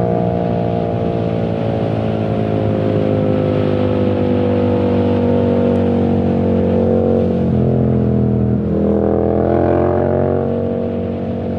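Yamaha MT-07 (2021) parallel-twin engine running through a full titanium exhaust with no dB killer while riding. The revs sink slowly for several seconds, then there is a sudden step in pitch, a sharp dip, and the revs climb again.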